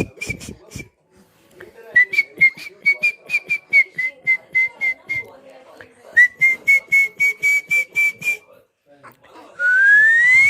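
Someone whistling to a baby in quick short notes, about four a second, in three runs with brief pauses, then one long rising whistle near the end.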